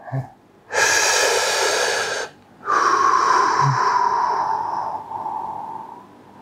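A deep breath close to the microphone: a breath in of about a second and a half, a short pause, then a longer breath out that fades away. The breath out carries a whistling note that slowly drops in pitch.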